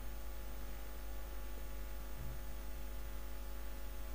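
Steady low electrical hum with a faint hiss.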